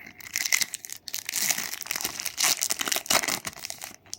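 Plastic wrapper of a trading-card pack crinkling as it is torn open and handled, a dense crackling that pauses briefly about a second in.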